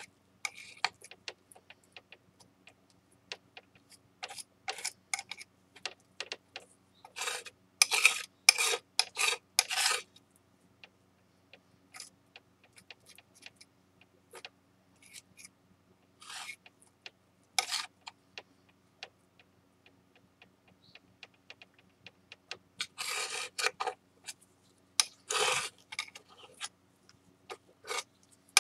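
Metal spatula scraping and tapping on a hard, smooth mixing surface while kneading shin urushi lacquer into flour to make a repair paste. Irregular clicks and short scrapes, with longer runs of scraping about a third of the way in and again near the end.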